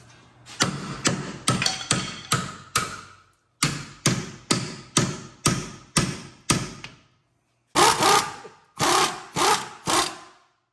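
Hammer blows on metal, driving a shock mounting bolt through its bracket: three runs of sharp ringing strikes at about two a second, with short pauses between the runs.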